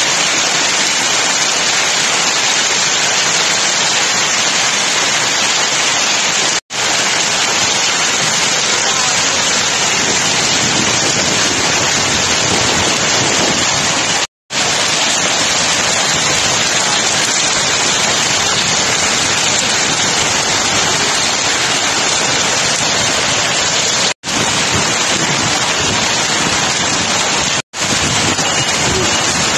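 Heavy hail falling and pelting a street: a dense, steady hiss of ice pellets. It cuts out for an instant four times.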